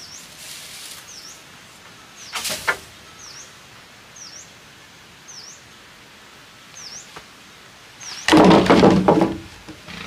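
Wooden knocks as a log is handled onto wooden posts: two sharp knocks about two and a half seconds in, then a louder clatter of wood lasting about a second near the end. A bird gives a short chirp about once a second throughout.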